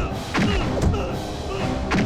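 Dramatic film background score with held tones, struck through by several heavy thuds.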